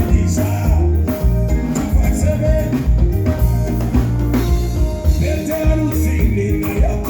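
Live band playing an upbeat song at a sound check, with drum kit and heavy bass under a singing voice.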